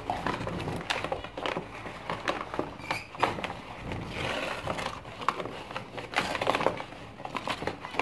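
Brown paper rustling and crinkling in a hand, with clicks and rattles of a wire bird cage as the paper is pushed about inside it. A short high chirp from a zebra finch about three seconds in.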